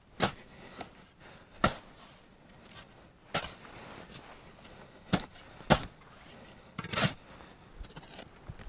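Shovel chopping into sandy soil at a burrow opening, six sharp strikes at uneven intervals of about one to two seconds.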